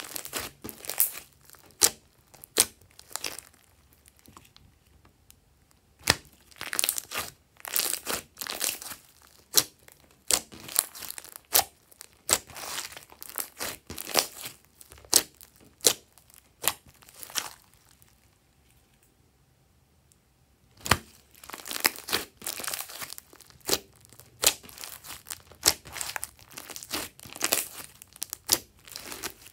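Hands squishing and stretching glossy slime with small beads mixed in: sticky clicking and popping in bursts, with two short pauses, one near the start and one about two-thirds of the way through.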